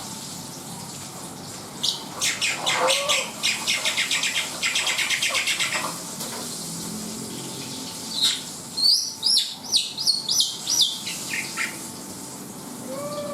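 Black-winged starling (jalak putih) singing: a rapid run of harsh, chattering notes, then, about eight seconds in, a burst of loud, sharp whistled notes that sweep up and down.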